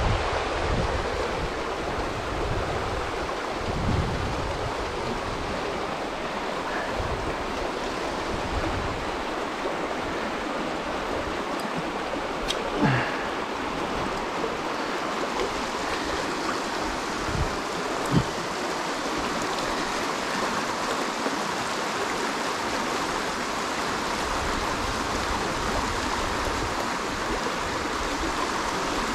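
Fast-flowing river rushing over shallow rapids: a steady wash of water. Two brief knocks come through about halfway.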